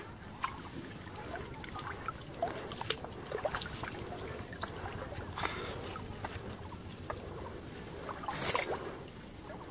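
Water sloshing and splashing as a person wades through shallow floodwater and hauls a fishing net out of it, with a run of small irregular splashes and one louder splash about two-thirds of the way through.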